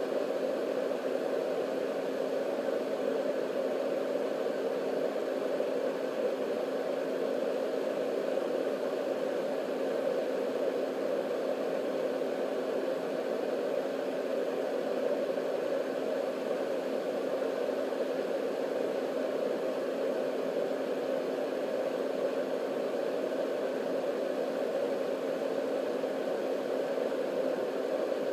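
Marpac Sound Screen 980A white noise machine running, its motor-driven fan making a steady, even rush of air noise with a faint steady hum underneath.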